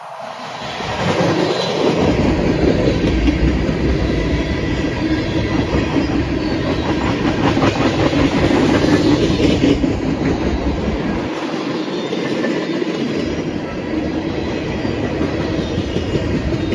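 Freight train tank cars rolling past close by, steel wheels clacking over rail joints over a steady heavy rumble and rattle. It swells up about a second in and stays loud.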